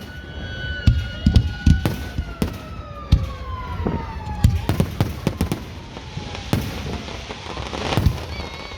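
Fireworks display going off: a rapid run of booms and sharp pops. Over it runs a long whistling tone that rises, holds, and then slowly falls over a few seconds.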